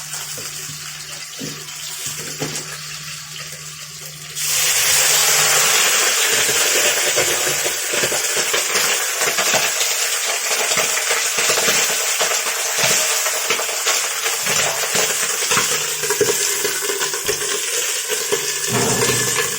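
Pork slices frying in hot rapeseed oil in a wok, with a low hum from the kitchen fan and a few knocks. About four seconds in, the sizzle jumps suddenly to a loud, steady hiss and keeps on.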